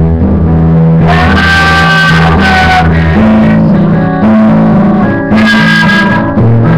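Amplified acoustic guitar strummed and picked, moving through chords, with singing into the microphone. The music swells louder about a second in and again just past five seconds.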